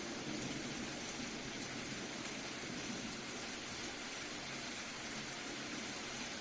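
Soft steady rain, an even hiss of falling rain with no distinct drops standing out.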